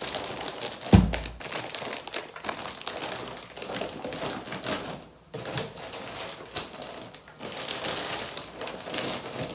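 Plastic packaging rustling and crinkling as things are handled and packed, with a dull knock about a second in.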